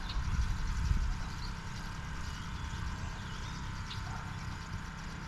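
Outdoor background noise on open water: a low, steady rumble with a few faint, short high chirps.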